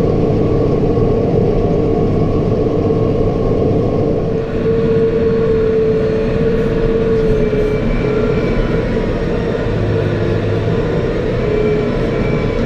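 Farm tractor running steadily with a round baler in tow: an even, loud engine drone with a constant whine that wavers slightly in pitch.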